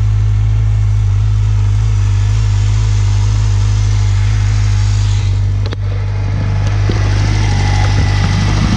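Stock 2016 Yamaha R6's 599 cc inline-four idling steadily through its original exhaust, warming up after a cold start.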